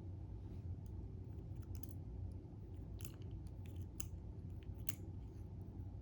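Scattered small metal clicks and ticks as a Kwikset lock cylinder is taken apart by hand and its pins and springs are picked out, with a few louder clicks in the middle, over a steady low hum.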